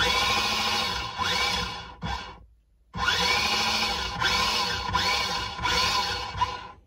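A combat robot's brushed drive motor run through a 40 A dual-motor ESC, throttled up and down over and over so its whine keeps rising and falling. It stops for about half a second near the middle, then runs again. This is a bench test of the new ESC, which drives at least one side.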